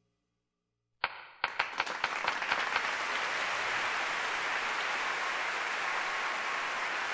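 Audience applauding: after about a second of silence, a few single claps break out and within a second or two spread into steady full applause.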